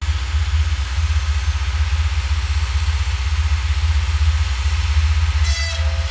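Tractor engine running hard, driving a boom-mounted rotary sawblade that is cutting into tree limbs: a loud, steady, deep drone with a constant hiss over it.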